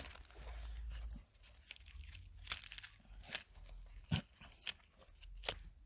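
Packaging crinkling and tearing as it is opened by hand, then a few separate sharp clicks and rustles as the contents are handled.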